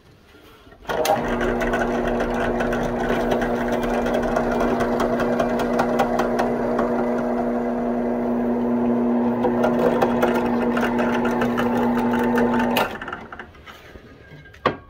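Drill press running steadily while a twist bit bores through a steel knife blank cut from a saw blade, a constant motor hum under a grinding chatter. It starts about a second in and winds down near the end.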